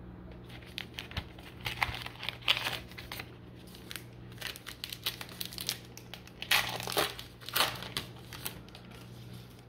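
Plastic trading-card pack wrapper being torn open and crinkled by hand: irregular crackling rips and crinkles, loudest in the second half.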